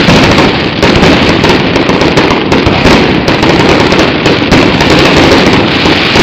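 Loud fireworks barrage: a dense, unbroken run of bangs and crackling with no pauses.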